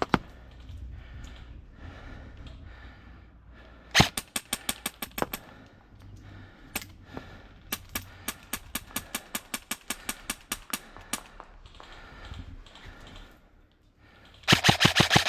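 Airsoft rifle firing BBs in sharp clicking shots: a short burst about four seconds in, a long evenly spaced string of shots through the middle, and a fast, loud burst near the end.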